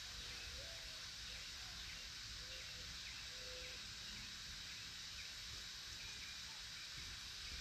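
Faint outdoor ambience: a steady hiss with a thin high steady tone, and a few faint bird chirps and short whistles in the first few seconds.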